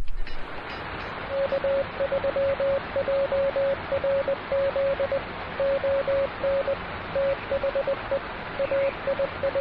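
Morse code (CW) from a Yaesu FTDX10 HF transceiver: a single steady beep keyed in dots and dashes over an even hiss of band noise, the keying starting about a second in.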